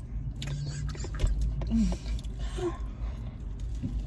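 Chewing and mouth noises of someone eating a slice of pizza: small wet clicks, with a couple of brief hummed voice sounds, over a low steady rumble.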